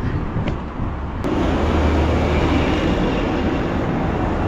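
A heavy truck passing close by on the road, its engine hum and tyre noise coming in suddenly about a second in and staying loud.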